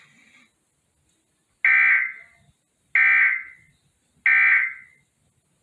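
Three short, loud electronic data bursts about 1.3 seconds apart, each trailing off. These are the Emergency Alert System's end-of-message (SAME) bursts that close the Amber Alert broadcast.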